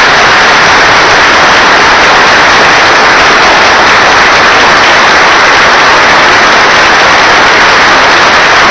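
A large audience applauding: loud, steady, dense clapping that does not let up.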